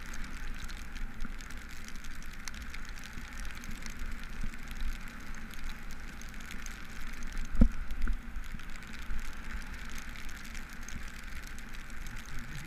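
Riding noise of a cargo bike on a wet road in the rain: a steady wash of rain and tyre hiss over a low rumble, with a single thump about seven and a half seconds in.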